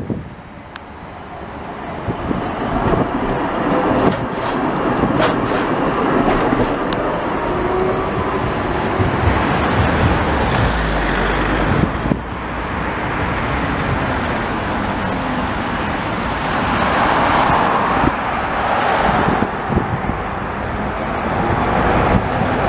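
Trams running on street track amid road traffic, a steady rumble. Partway through, a high wavering squeal comes and goes for a few seconds, and near the end a thinner high whine: the tram's wheels squealing on the rails.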